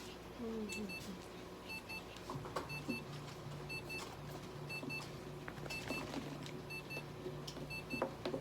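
An electronic device beeping in short double beeps, repeating about once a second, over a steady low hum.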